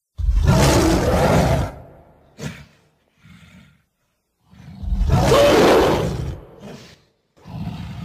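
Sound-effect roars of a gorilla-like beast: two long, loud roars about four seconds apart, with short grunts between them and a third, weaker roar starting near the end.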